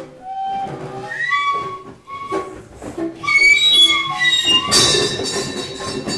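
Freely improvised instrumental music: high, sliding, squealing tones with scraping textures, turning louder and harsher, noisier, about five seconds in.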